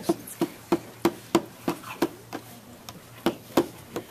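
Slow, sparse hand clapping, about three claps a second, with a short pause a little past the middle.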